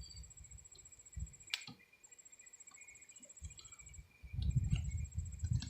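An insect trilling in a high, finely pulsed tone that breaks off briefly a few times. Low rumbling on the microphone comes and goes, heaviest near the end, and there is one sharp click about a second and a half in.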